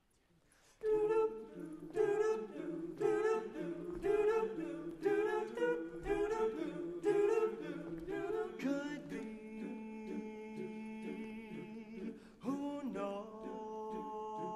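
Men's chorus singing a cappella: short accented chords about once a second, then from about nine seconds in, long held chords that shift to a new chord near the end.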